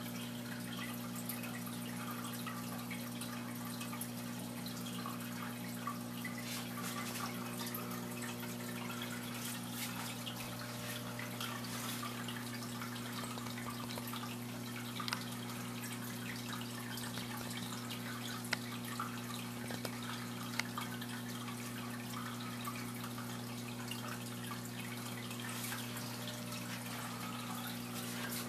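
Air bubbles streaming up from a Hydor Ario aquarium volcano ornament, fizzing and dribbling at the water surface with a few louder pops partway through, over a steady low hum from the tank's pump.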